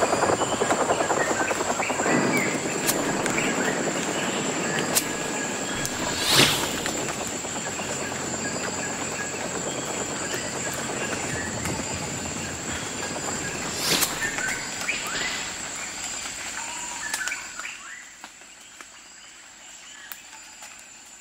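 Outdoor ambience: a dense, steady wash of noise with scattered bird chirps. Two brief sharp swooshes come about six and fourteen seconds in, and the wash fades to a low hush about seventeen seconds in.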